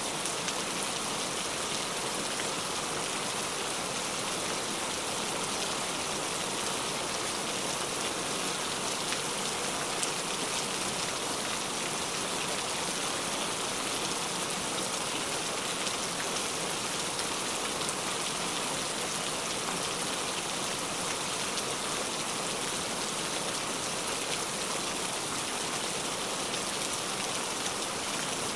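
Steady rain falling: an even hiss of many drops that keeps up without a break.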